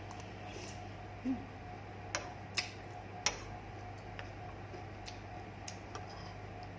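Eating sounds: a few sharp clicks and smacks, with a short low blip a little over a second in, over a steady low hum.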